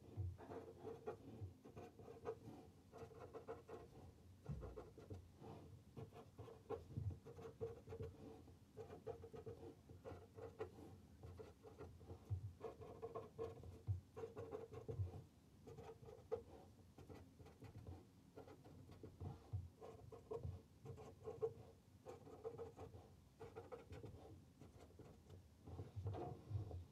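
Felt-tip pen writing on paper: faint scratchy strokes in quick clusters, one word after another.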